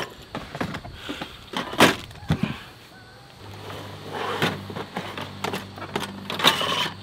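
Clicks, knocks and clatter of a portable gas stove's hard plastic carrying case being handled, opened and the stove lifted out. A low steady hum comes in about halfway through.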